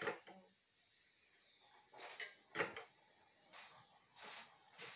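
A few scattered soft knocks and clicks of small kitchen items being handled, the sharpest about two and a half seconds in.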